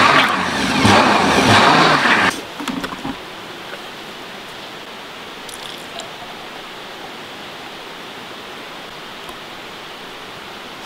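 A loud machine noise cuts off abruptly about two seconds in, leaving the steady rush of river water.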